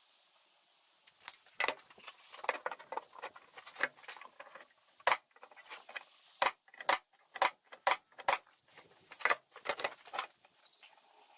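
Irregular sharp taps and knocks, a dozen or more strikes spaced unevenly about half a second to a second apart: finish nails being tacked in by hand to hold glued wooden box sides together.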